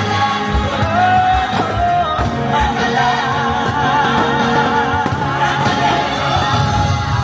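Show soundtrack music with sung voices holding long, wavering notes over a sustained bass.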